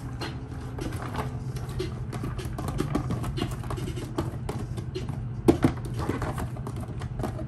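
Diced onions tumbling and being scraped from a plastic tub into a plastic mixing bowl, with irregular light taps and clicks of the tub against hand and bowl and one louder knock about five and a half seconds in.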